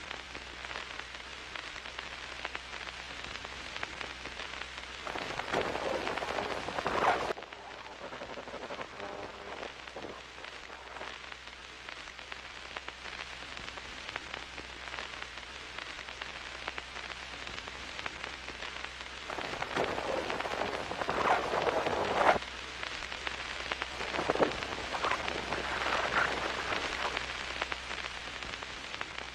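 Film projector running: a steady clattering patter of film through the gate over a low motor hum, growing louder for a few seconds about five seconds in and again from about nineteen seconds on.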